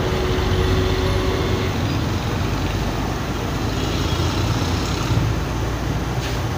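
Steady background din of street traffic with a low rumble, mixed with the gas burner running under a wok of heating oil.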